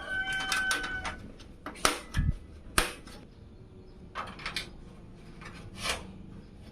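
Scattered clicks and knocks of small hard parts being handled, with a dull thump about two seconds in and a sharp click just after; a rooster's crow tails off in the first second.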